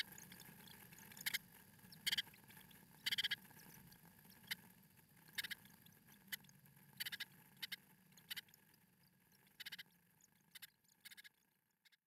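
Blue tits in the nest box giving thin, high-pitched cheeps, about a dozen short, irregularly spaced squeaks over a faint low hum.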